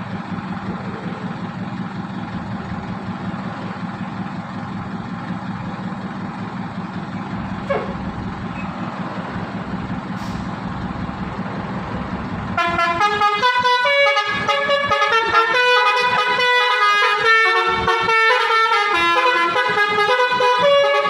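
A bus engine idles with a steady low hum. About twelve seconds in, a Basuri telolet horn, the multi-tone musical bus horn, starts playing a tune of quick stepping notes, louder than the idle.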